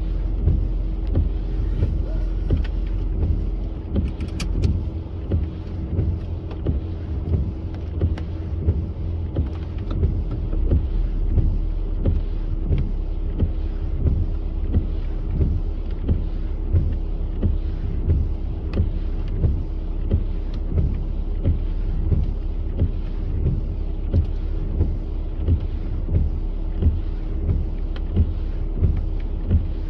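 Jeep Cherokee Trailhawk heard from inside the cabin, running steadily at a crawl in 4WD lock and mud mode, with a low hum and a steady drone. A regular knock comes about once a second, and there is a brief sharp click about four seconds in.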